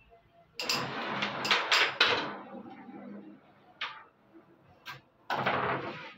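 Carrom striker shots: the striker is flicked across the board and clacks against the coins and the wooden frame, giving a cluster of sharp clicks from about half a second to two seconds in, single clicks near four and five seconds, and another burst of clacks near the end.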